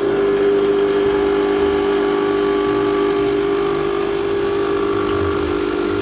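Lelit Anita PL042 espresso machine's vibratory pump switching on and running with a steady buzz, building brew pressure toward nine bars as an espresso shot begins to pour.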